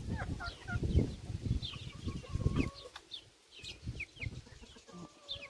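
A flock of young chickens clucking and peeping, with many short, high, downward chirps scattered throughout and a few lower clucks. Low thumping noise runs through the first few seconds.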